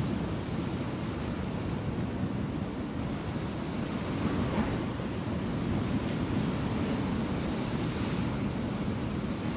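Sea waves and wind: a steady, low wash of open water with no break in it.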